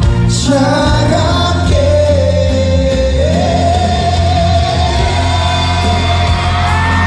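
Live concert music in a large hall: a male pop singer sings over the band, holding a long note about three seconds in, with audience shouts and screams mixed in.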